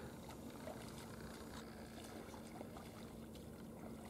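Faint splashing and trickling of river water scooped up by hand and poured over a dog standing in the shallows.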